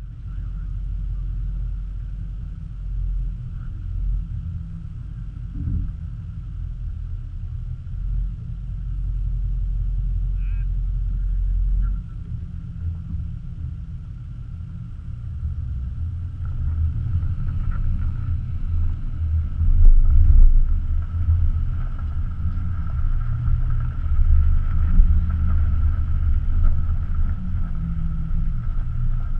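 Low rumble of a 2017 Nissan Armada SUV driving over a dirt off-road track, heard from a camera mounted low on its body beside a wheel: tyre and road noise with a faint steady whine. It gets louder in the second half.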